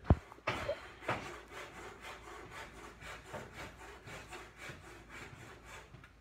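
A sharp knock, then repeated rough strokes of wood scraping on wood, about two or three a second.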